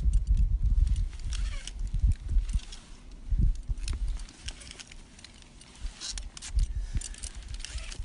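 Metal climbing gear clicking and jingling as jumar ascenders are pushed up a fixed rope and the carabiners and gear on the harness swing, in bursts a few times, over low buffeting rumbles on the microphone.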